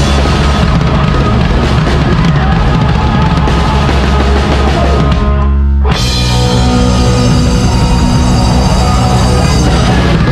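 A live heavy metal band playing loudly: drum kit with cymbals, distorted electric guitar and bass. About five seconds in, the cymbals and high end fall away for half a second, then the full band crashes back in.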